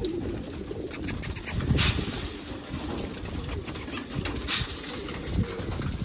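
A flock of domestic pigeons cooing, with two short whooshing bursts about two seconds and four and a half seconds in.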